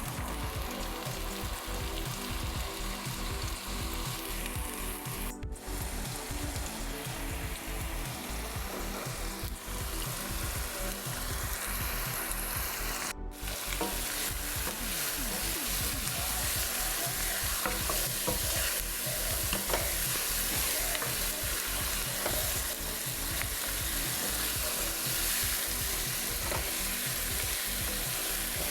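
Food frying in a pan: a steady sizzling hiss with small crackles, briefly cut off twice.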